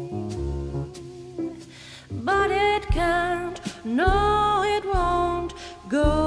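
A band song with bass and sustained chords, light drum and cymbal hits, and a singing voice that comes in about two seconds in, sliding up into each phrase.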